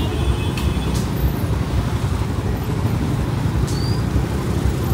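Slow two-wheeler traffic: scooter and motorbike engines running at low speed in a dense, steady low rumble, with a few faint clicks.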